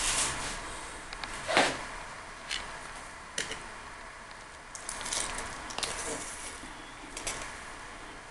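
Hands handling a slippery piece of sturgeon on a ceramic plate: soft wet squishing and rubbing with scattered light clicks, and one louder brief sound about one and a half seconds in.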